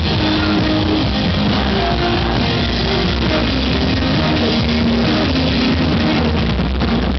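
Live rock band playing loud and steady: electric guitar, synthesizer keyboard and drums, with a singer at the microphone.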